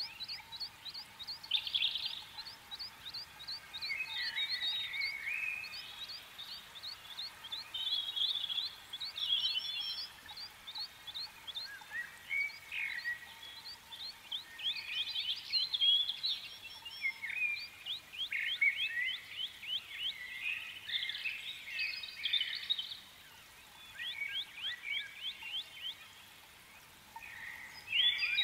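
Birds chirping and trilling, with quick runs of short falling notes and brief warbles coming and going throughout.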